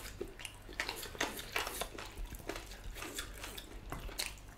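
Eating sounds: irregular soft clicks and smacks of people chewing food eaten by hand, with a spoon clinking in a stainless steel bowl near the end.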